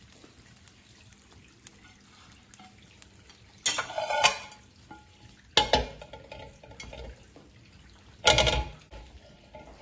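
Cookware clattering: three loud, sharp clanks with a brief ring, about four, five and a half and eight seconds in. The last is a large ceramic plate being set over a pot of rice.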